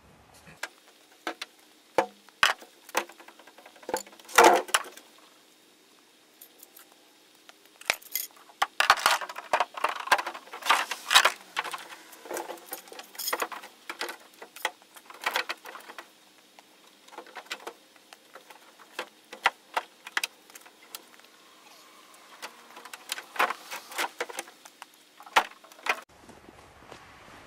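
Irregular small clinks, rattles and knocks, like hard objects being handled, with a quieter pause about six seconds in and a busier run of clattering from about eight to sixteen seconds in.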